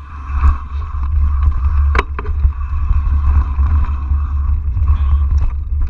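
Mountain bike riding fast down a dirt trail: a steady low rumble of wind buffeting the microphone, with knobby tyres on dirt and the bike rattling over bumps, and one sharp knock about two seconds in.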